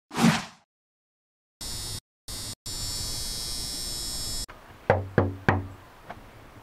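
A short swish, then a synth music sting that cuts out twice and stops suddenly, followed by three quick knocks on a door and a couple of fainter taps.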